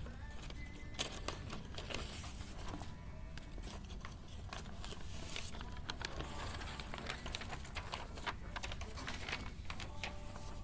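Sheets of paper rustling and crinkling, with many quick crackles as a stack of papers is leafed through and loose sheets are handled, over faint background music.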